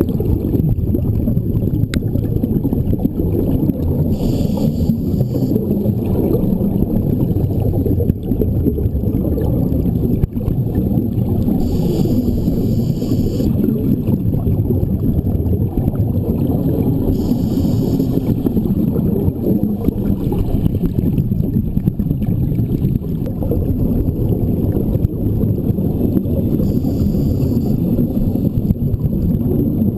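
Scuba regulator exhalations recorded underwater: five bursts of bubbling, a few seconds apart, over a steady low rumble of water noise.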